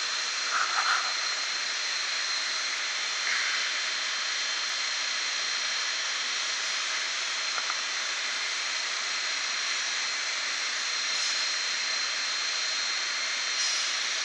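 Steady rushing machine noise, like a running fan, with a faint steady high whine, and a few soft light clicks over it.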